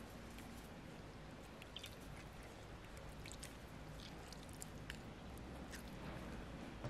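A lemon half squeezed by hand over a bowl of soup: faint wet squishing, with scattered small clicks and drips of juice falling into the broth.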